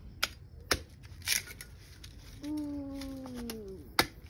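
Large knife blade chopping into a coconut's hard, fibrous husk: a few sharp strikes spaced unevenly, one of them a short scraping tear of husk. In the middle a person hums one long falling note.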